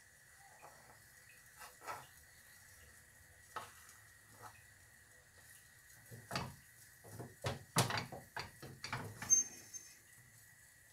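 Metal slotted turner and cookware knocking and clinking against a frying pan and pot: a few light taps at first, then a quick cluster of louder clinks in the second half, one ringing briefly. A faint steady high hum lies underneath.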